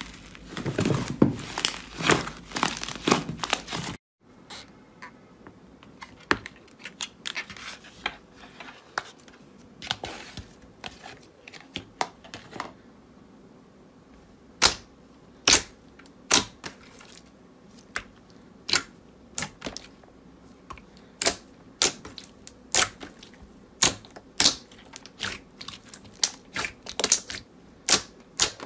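Slime being squeezed and worked by hand: a few seconds of dense crinkling and crackling, then, after a sudden break, sharp crisp clicks and pops at about one or two a second.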